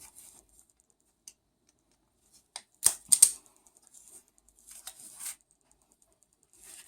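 Irwin Vise-Grip self-adjusting wire stripper worked on stiff 2.5 mm twin-and-earth cable: a few sharp clicks and snaps of the spring-loaded jaws closing and releasing. The loudest cluster comes about three seconds in, with softer clicks after it.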